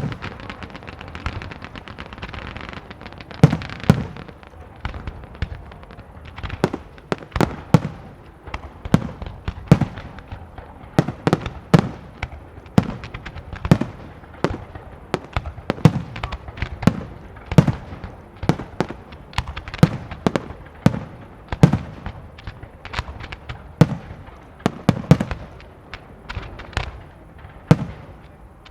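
Fireworks display: aerial shells bursting in a steady, irregular string of sharp bangs, about one to two a second, over a continuous crackle. The crackling is densest in the first few seconds.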